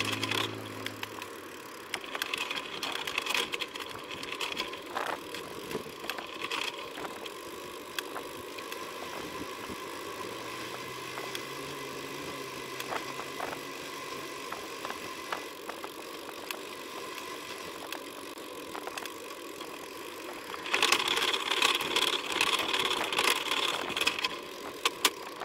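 Riding noise from a bike-mounted camera on a recumbent cycle: steady tyre and wind hiss with frequent small rattles and clicks from the cycle and its bags. A faint low hum comes in about ten seconds in for a few seconds, and near the end the rattling and hiss grow louder.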